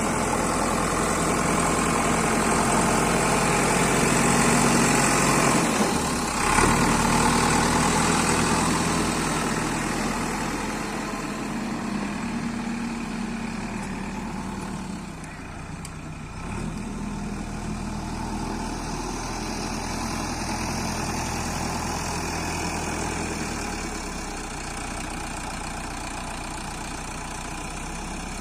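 JCB 3DX backhoe loader's diesel engine running steadily, its level easing off partway through, with one sharp knock about six and a half seconds in.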